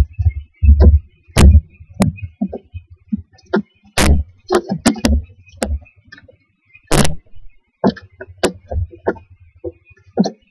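Irregular knocks, thumps and scrapes as barn owl owlets shift and push against the wooden floor and walls of their nest box while one works at swallowing a whole gopher. The sounds come through the nest box's built-in microphone.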